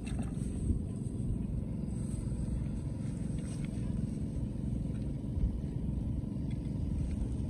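A motor running steadily, a low, even rumble with no changes.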